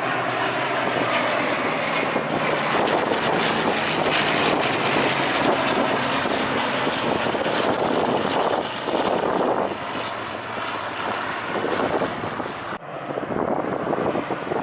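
Propeller aircraft engine running loud and steady as the plane flies past, with an abrupt break near the end.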